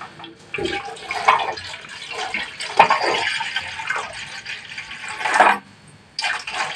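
Water poured from a plastic jug into a hot steel wok, a steady stream splashing into the pan. The pouring breaks off briefly about five and a half seconds in, then more splashing follows.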